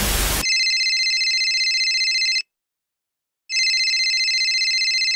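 Telephone ringing twice, each electronic ring about two seconds long with a second of silence between, the call going unanswered. A loud hiss cuts off about half a second in, just before the first ring.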